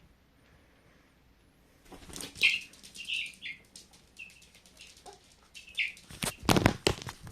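A 13-day-old chick peeping several times in short high calls, with bursts of wing flapping and scuffling that are loudest about six seconds in.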